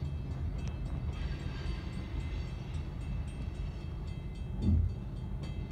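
Freight train's gondola cars rolling past a grade crossing, a steady low rumble of wheels on rail heard from inside a car, with one louder thump about four and a half seconds in.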